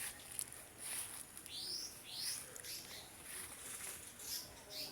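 Birds chirping: a few short sweeping whistled notes from about a second and a half in, with scattered faint clicks.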